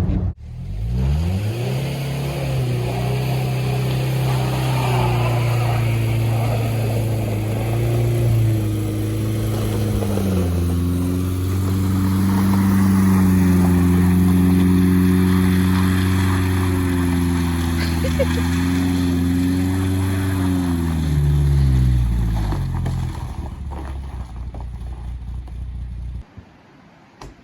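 VW Vanagon engine pulling the van up to speed, running steadily with a change in pitch about ten seconds in, then winding down near the end.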